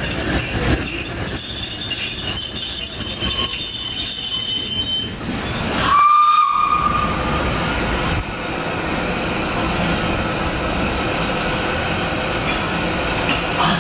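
Steam railway train running, with a thin high squeal over the running noise for the first half. A short whistle sounds about six seconds in, then the train runs on steadily.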